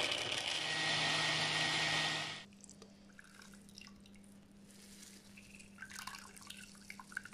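An electric blender runs steadily, grinding coconut pieces and water into coconut milk, and cuts off suddenly about two and a half seconds in. After that, coconut milk trickles and drips from a hand-squeezed ball of coconut pulp into a plastic jug.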